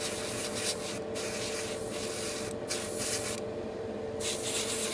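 Airbrush hissing in four short bursts with brief gaps between them, over the steady hum of its air compressor.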